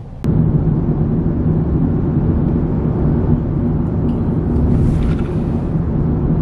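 Road and engine noise inside a moving car: a steady loud low rumble with a hum, starting suddenly a moment in.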